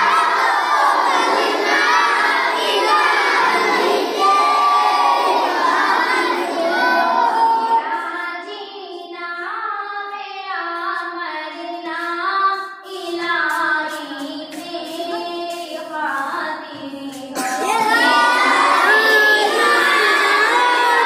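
A group of young girls singing an Urdu hamd (devotional hymn) together, unaccompanied. From about eight seconds in the singing thins and softens to a clearer melody line, then the full group comes back in loudly near the end.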